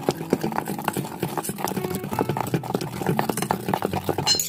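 A metal spoon stirring a thick, wet paste of mashed fermented bean curd dipping sauce in a stainless steel bowl, a quick, continuous run of squelches, scrapes and small clicks against the metal.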